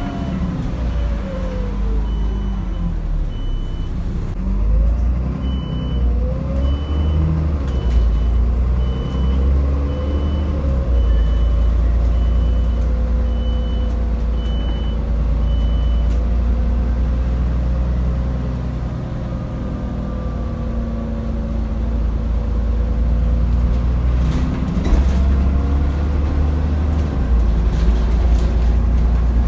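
Alexander Dennis Enviro400 double-decker bus on the move, heard from inside the passenger saloon: a deep engine rumble with a drivetrain whine that rises and falls as the bus picks up speed and slows. A high beep repeats about once a second through the first half, then stops.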